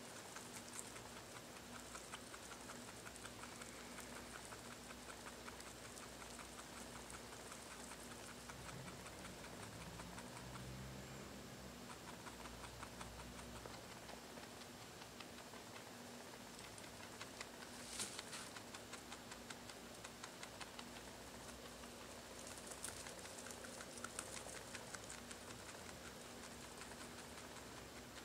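Pet rabbit chewing hay: a fast, faint, crunching run of small ticks, with a sharper click a little past halfway and a few louder crisp ticks later on.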